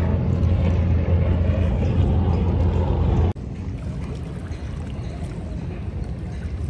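Wind buffeting a phone microphone on open water, a loud low rumble; about three seconds in it cuts abruptly to a quieter, steady wash of wind and water around a kayak.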